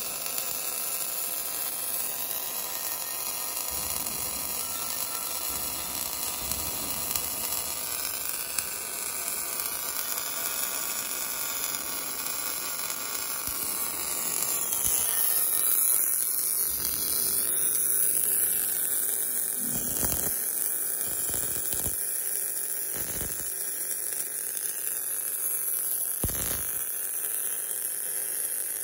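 Automatic seam welder's wire-fed MIG arc burning along a tank's longitudinal seam: a steady hiss and crackle with a faint hum, and a few short pops in the second half.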